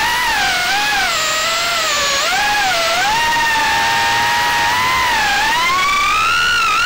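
FPV quadcopter's brushless motors and propellers whining, the pitch swooping up and down with the throttle and climbing highest just before the end.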